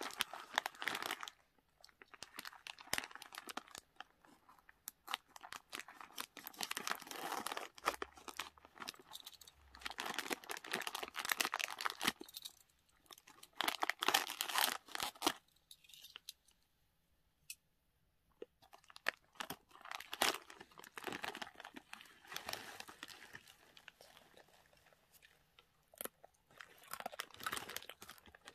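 Plastic instant-ramen packet crinkling and rustling in irregular bursts as it is handled, slit with a box-cutter blade and pulled open, with a few sharp clicks and a quiet spell a little past halfway.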